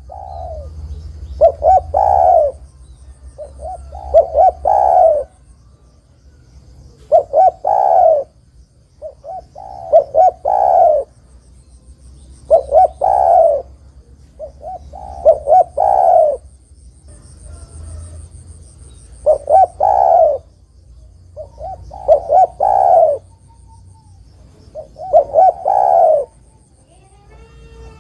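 Spotted dove (derkuku, Spilopelia chinensis) cooing its territorial call over and over. Each phrase is a couple of short coos and then a longer arching coo, repeated about every three seconds. A faint, high chirping runs in the background.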